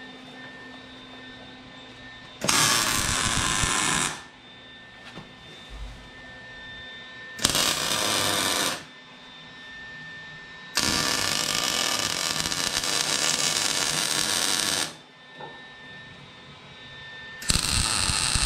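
Wire-feed welder laying four welds on the steel truck frame: four stretches of steady, even arc crackle, the third about four seconds long and the others one to two seconds, with the last still running at the end, and a quiet steady background between them.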